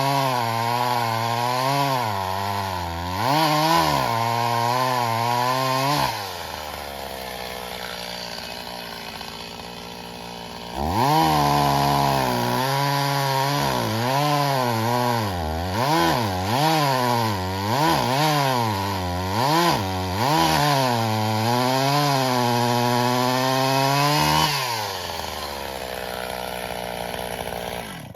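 Stihl MS 270 two-stroke chainsaw running at full throttle through birch logs, its engine note dipping and recovering as the chain bogs in the wood. It drops to idle twice, about six seconds in and again near the end, and stops right at the end.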